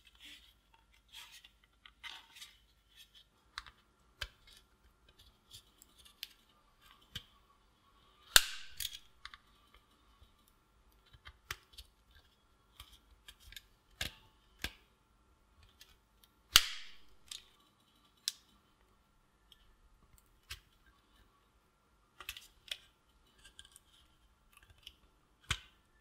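Plastic case of an ASUS A42-G750 laptop battery pack being pried open with a small tool: scattered clicks and creaks of the plastic, with loud sharp snaps about eight and sixteen seconds in and another near the end.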